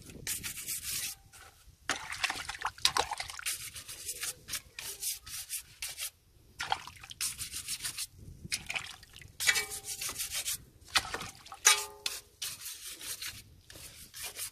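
Stiff plastic-bristled brush scrubbing a wet brake caliper, rasping over the metal in repeated uneven strokes with short pauses between them. A couple of brief squeaky tones come in about two-thirds of the way through.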